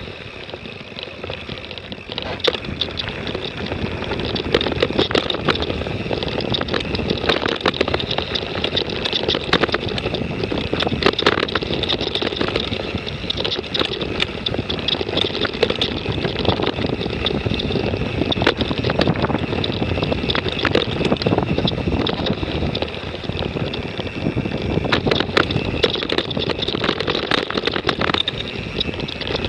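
Mountain bike riding along a rough dirt singletrack: a steady rush of tyre and riding noise with frequent sharp rattles and knocks from the bike jolting over bumps.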